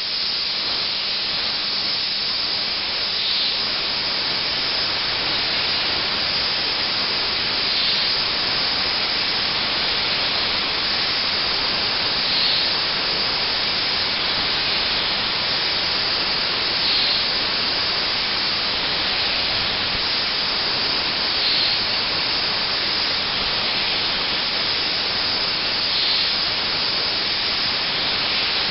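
YCM NSV 102A vertical machining center hard milling: a steady, high hiss of the cutting, swelling slightly about every four and a half seconds.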